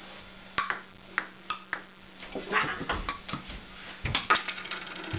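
Ping-pong rally: the celluloid ball clicking sharply off paddles and the table top at an uneven pace, with the loudest hits clustered about four seconds in.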